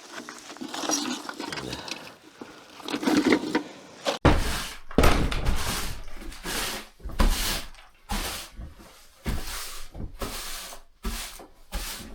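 Scraping, rubbing and knocking as a fire pit is cleared out by hand. About four seconds in it turns into a run of heavy, sudden strokes, roughly one a second.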